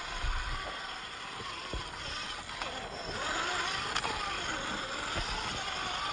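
Axial Capra RC crawler's electric motor and geared drivetrain whining, the pitch rising and falling as the throttle is worked. Short clicks and knocks from the buggy crawling over the ground.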